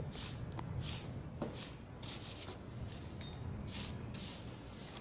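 Chinese ink-painting brush sweeping wet grey ink wash across paper: a series of short brushing swishes, one after another.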